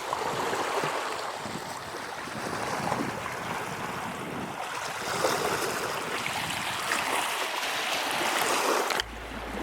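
Sea surf washing against a rocky shore: a steady rushing noise, with wind on the microphone. It cuts off abruptly near the end to a quieter background.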